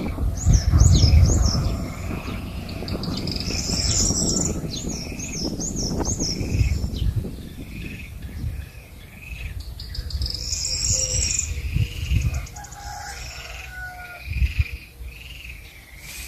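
Small birds chirping in quick repeated series of short rising-and-falling calls, over a low rumbling noise that is strongest in the first half.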